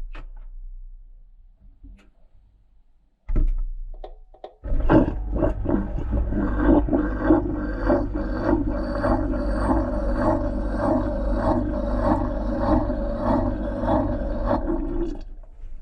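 Washing machine starting up, recorded from inside its drum: a low hum comes on about three seconds in, then from about five seconds a steady churning with a regular pulse about twice a second, which stops shortly before the end.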